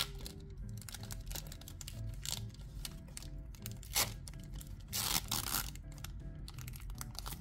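Foil wrapper of a Pokémon trading-card booster pack being torn open and crinkled by hand, in sharp tearing bursts about four seconds in and again about a second later, over quiet background music.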